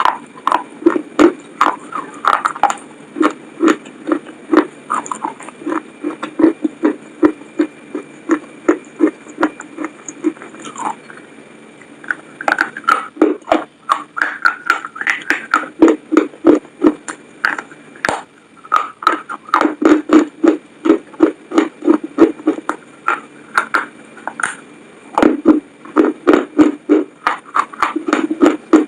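Close-miked chewing of McDonald's french fries: a steady rhythm of about two to three chews a second, with a short pause a little before the middle.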